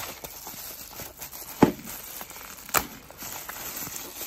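Plastic packaging wrap being handled and unwrapped by hand, crinkling and rustling, with two louder sharp crackles about one and a half and almost three seconds in.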